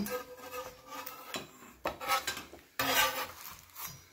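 Metal spatula scraping and clinking on a griddle as quesadillas are pressed and lifted. There are a few sharp clicks and a louder clatter about three seconds in.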